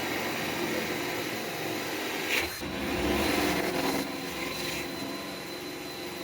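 Electric drill running with a 5/8-inch bit, a steady motor whine that pauses briefly about two and a half seconds in and then runs harder.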